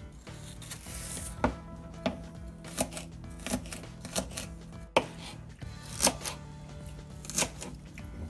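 Kitchen knife chopping celery stalks on a plastic cutting board: crisp, evenly spaced cuts about one a second.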